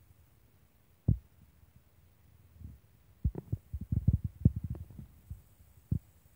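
Handling noise on the recording device: dull low thumps, one about a second in, a quick irregular cluster from about three to five seconds in, and one more near the end.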